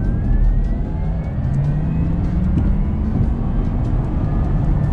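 Sports car accelerating hard at full throttle from about 90 to 170 km/h. A deep, steady engine rumble slowly rises in pitch, and above it a thin whine rises and then levels off as the acceleration eases.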